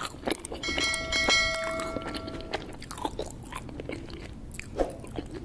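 Subscribe-button animation sound effect: a bell-like chime rings for about two seconds starting about a second in, among scattered sharp clicks.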